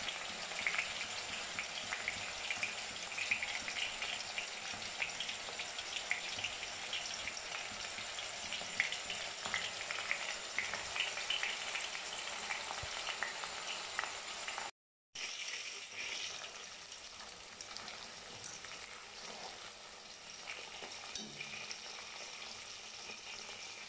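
Brinjal (eggplant) slices deep-frying in hot coconut oil in a metal wok: a steady sizzle crackling with many small pops. It breaks off for a moment about two-thirds of the way through and goes on a little quieter after.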